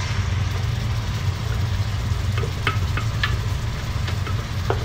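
Minced onion dropping into oil in a wok, with faint sizzling and a few light pops in the second half, over a steady low hum.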